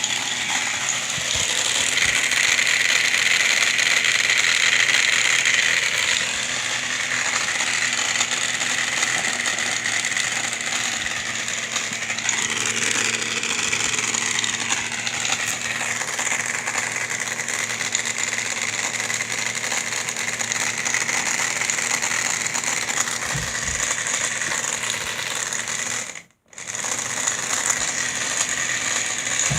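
Repaired air conditioner running with its cover off, compressor and blower fan going fast: a loud, steady mechanical whir with a low hum underneath. The sound drops out abruptly for a moment about 26 seconds in, then comes back.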